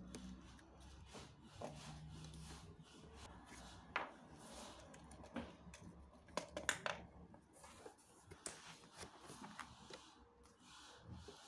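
Faint handling noise of LEGO Technic plastic parts and tape-wrapped wheels rubbing and clicking in the hands. There are sharper clicks about four seconds in and a quick cluster around seven seconds, and a faint low hum in the first few seconds.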